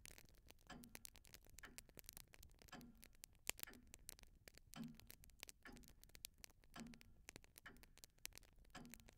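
Very faint clock ticking, a soft tick-tock about once a second, with scattered light crackles around it.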